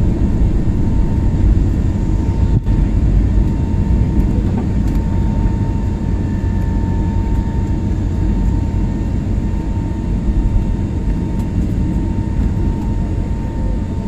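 Jet airliner's turbofan engines at takeoff thrust, heard inside the cabin over the wing as the plane lifts off and climbs: a loud, steady low rumble with a steady whine above it, easing slightly toward the end.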